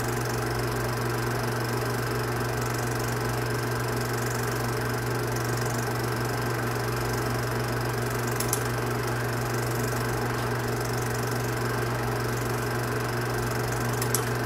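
Film projector running steadily, a constant mechanical hum with a low drone, with two faint clicks, about eight seconds in and near the end.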